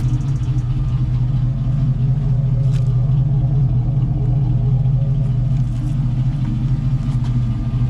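A steady, low, droning rumble from an engine running, with a few faint clicks.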